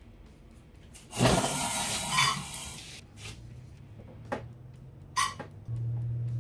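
Hiss of air and coolant rushing through an Airlift cooling-system vacuum filler as its valve is opened, with coolant drawn up from the drain pan into the evacuated cooling system. The loud hiss starts suddenly about a second in and fades after about two seconds. A shorter hiss follows near the end, then a steady low hum starts.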